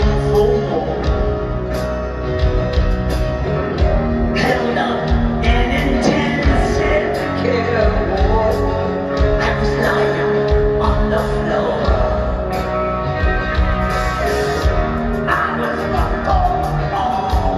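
Live rock band playing, with electric guitars, bass and drums and a lead singer, heard from the crowd in an arena.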